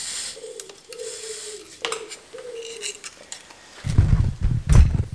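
Steel gear cable scraping and clinking against the frame and cable guide as it is fed under a road bike's bottom bracket, with several short squeaks. About four seconds in, a loud low rumble takes over.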